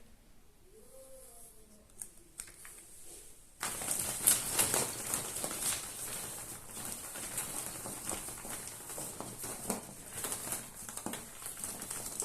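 Foil wrapper of a Kinder Surprise egg being unwrapped and crumpled: dense crinkling that starts suddenly about three and a half seconds in and stops near the end.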